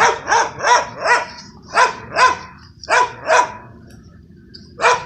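Dog barking in short, sharp barks, about nine of them, mostly in quick pairs, with a pause of about a second before the last.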